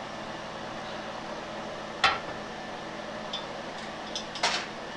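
A frying pan and its utensils clinking on an electric stove's coil burners: one sharp metallic clink about two seconds in and a few lighter clicks near the end, over a steady hiss.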